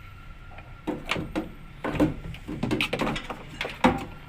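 A run of irregular knocks and clatters of hard objects being handled, with the loudest knock near the end.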